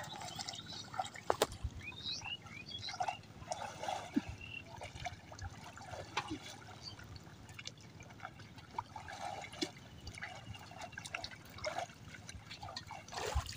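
Water trickling and dripping with small irregular splashes as people wade in shallow water and handle a wet net.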